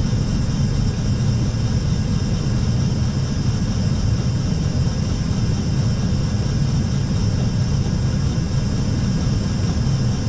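Steady cockpit noise of an Airbus A320 on approach: a deep, even rumble of airflow and engines with a fainter hiss above it.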